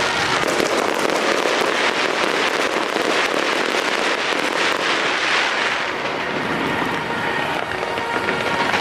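Aerial fireworks crackling: a dense, continuous rattle of many small reports.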